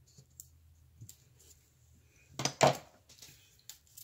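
Scissors snipping a strip of washi tape, with light scattered clicks, then a louder double clatter about two and a half seconds in as the scissors are laid down on the desk.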